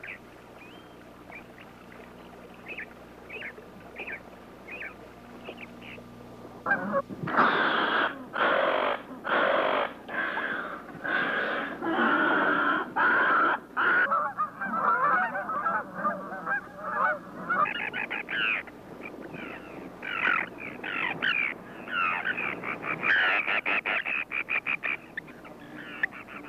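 A flock of water birds calling. At first there are a few short, high chirps. About seven seconds in, loud calls start, roughly one a second, and they build into dense overlapping calling, with a quick run of calls near the end.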